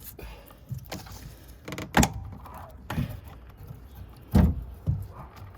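Irregular dull knocks and clunks from hands working at the plastic macerator fitting and hose, trying to twist it off; the fitting does not loosen. Two louder thunks come about two seconds in and about four and a half seconds in.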